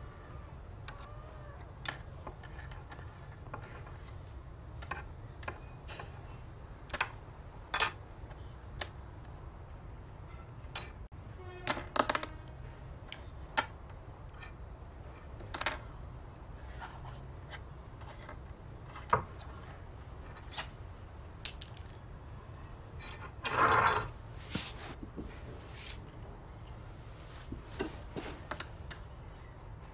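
Scattered small clicks and knocks of a metal spoon and a tin can handled on a tabletop, with one longer scrape about three-quarters of the way through, over a low steady hum.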